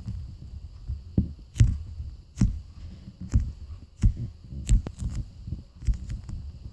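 Hands squeezing and handling a slow-rising foam pug squishy: a run of thumps roughly once a second, with low rubbing and handling noise between them.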